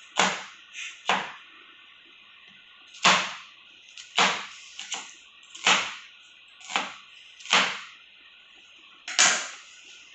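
Kitchen knife chopping onion on a wooden cutting board: about ten sharp chops at uneven spacing, some in quick pairs, each with a short ring-out.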